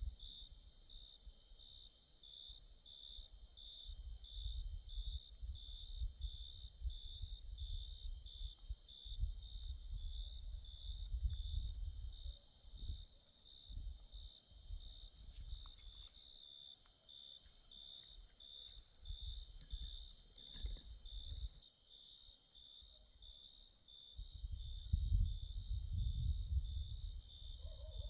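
Night insects calling: a steady high trill and a regular pulsing chirp about twice a second. Under them a low rumble rises and falls, and it is the loudest thing here.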